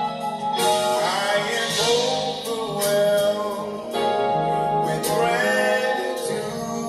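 A man singing a gospel song into a microphone, his voice sliding and holding long notes, over steady instrumental backing.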